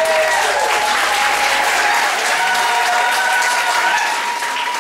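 Audience applauding a belly dance performance as it ends, with long high-pitched cries held over the clapping.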